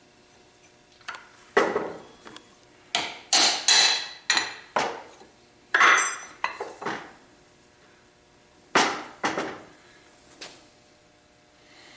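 A hammer knocking on metal compressor parts: about a dozen sharp blows at irregular spacing, in clusters, some with a brief metallic ring. This fits working apart the high-pressure discharge valve assembly of an Ingersoll Rand 2545 pump.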